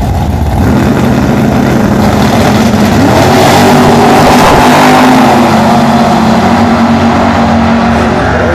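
Drag-racing cars launching from the start line and accelerating hard down the strip at full throttle. The engine noise builds to its loudest about four to five seconds in, then eases off slightly.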